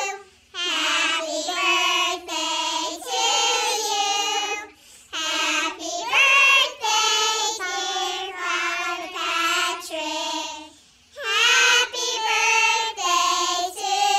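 A group of schoolchildren singing together in chorus, in a series of sung phrases with short breaks about five and eleven seconds in.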